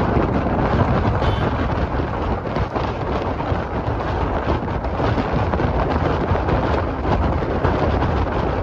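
Wind buffeting the microphone at an open window of a moving bus, over the steady low rumble of the bus on the road.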